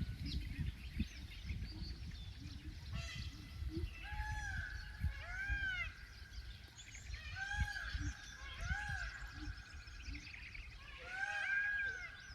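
A series of distant wild animal calls, each rising and falling in pitch, repeated several times from about four seconds in to near the end. The recorder takes them for peacocks with a hyena and monkeys. Small birds chirp in between.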